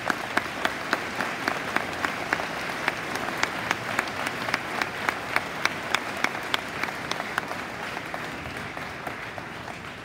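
An audience applauding, with one person clapping close by: loud, sharp, even claps about three a second over the crowd's dense clapping, which fades toward the end.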